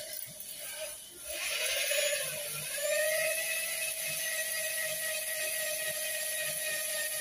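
Electric drill driving a cylinder deglazing hone in an engine block bore. It starts about a second in, rises in pitch as it spins up, then runs on with a steady whine.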